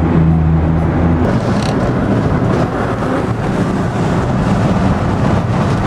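VW bus driving at highway speed, heard from inside the cabin: a steady low engine drone for about the first second, then, after a cut, even road and wind rumble.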